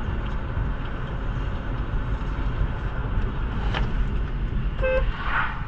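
Steady road and engine noise inside a moving car, picked up by a dashcam. Near the end there is a short pitched note and a brief hiss.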